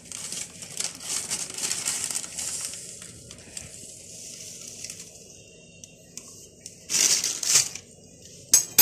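Wire whisk stirring thick tahini sauce in a glass bowl, giving a wet, crackly scraping for the first few seconds. It then goes quieter, with two short louder rustles near the end.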